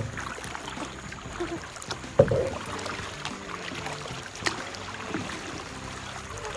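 Kayaking on a river: paddle and water sounds with a steady background wash, and a louder sudden thump about two seconds in.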